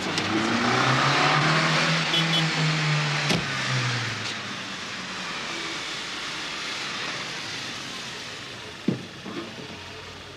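A Mercedes-Benz W123 estate car drives up and slows; its engine note drops about four seconds in and the sound fades as it comes to a stop. A single short knock comes near the end.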